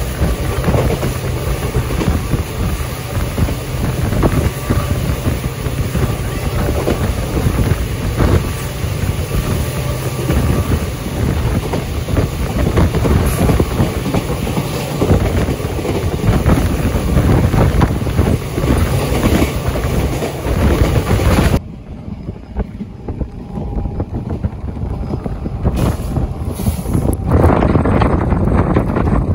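A moving passenger train running, heard at an open door, with wind buffeting the microphone. About two-thirds through, the sound cuts suddenly to a quieter, duller stretch, which grows louder again near the end.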